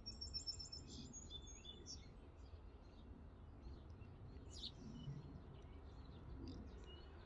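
Faint small songbird chirping: a quick run of high repeated notes in the first second or two, then scattered single chirps, over a steady low background hum.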